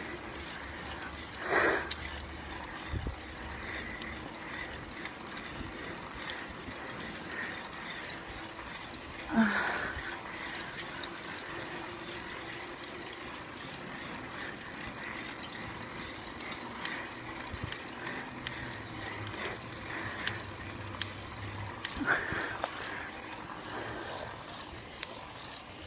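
Mountain bike rolling, with a steady ratchet-like clicking from the rear freewheel while coasting. Three brief louder sounds stand out, near the start, about nine seconds in, and about 22 seconds in.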